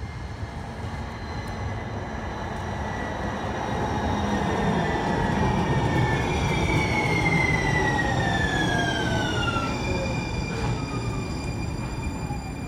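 Siemens S70 light rail train pulling into the station and passing close: the rumble of its wheels on the rails grows and then eases, under a whine that falls steadily in pitch as the train slows to a stop.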